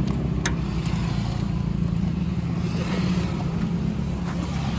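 Mahindra Jeeto's diesel engine idling steadily, with one sharp click about half a second in.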